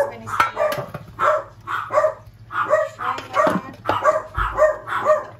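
Small dog barking repeatedly in short, even barks, about two to three a second.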